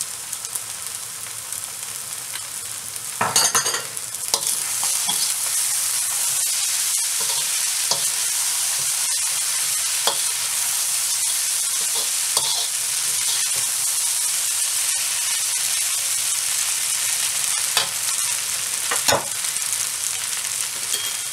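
Rice noodles, bean sprouts and Chinese leeks sizzling in a hot wok while a slotted metal spatula tosses and scrapes them against the pan, with scattered clicks of metal on the wok. A cluster of loud clanks comes about three seconds in, after which the sizzle grows louder and stays steady.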